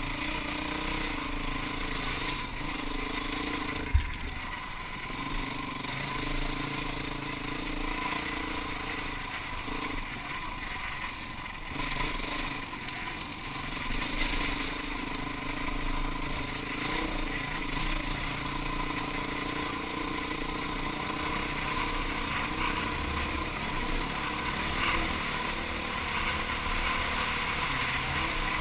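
Enduro trail motorcycle engine running as the bike is ridden over a rough track, heard from a helmet-mounted camera, its note stepping up and down with throttle and gears over a haze of wind and tyre noise. A single sharp knock about four seconds in.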